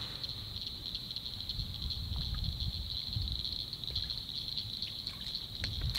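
Night chorus of crickets: a steady, high-pitched trill, with a faint low rumble underneath.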